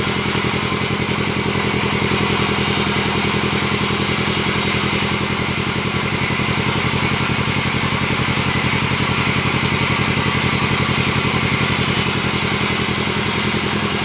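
Band sawmill running, with a steady, even engine chug and a high hiss that grows louder for a few seconds at a time.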